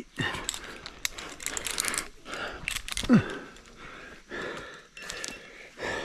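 Tree climber breathing hard while footlocking up a rope, with rope rustle and repeated clicks of the ascender and other climbing hardware; a brief grunt about three seconds in.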